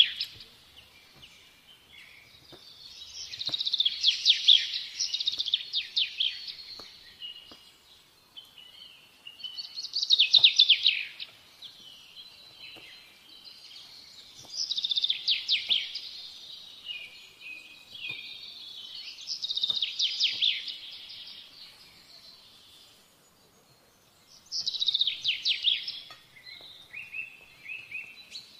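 A bird chirping in bursts of rapid trilled notes, one burst roughly every five seconds. Faint taps of a knife on a plastic cutting board can be heard between the bursts.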